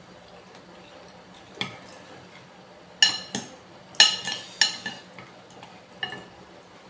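Metal spoon clinking against a soup bowl while scooping bakso, several sharp ringing clinks, the loudest about three and four seconds in.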